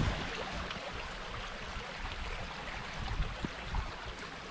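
A stream running steadily, with wind rumbling on the microphone.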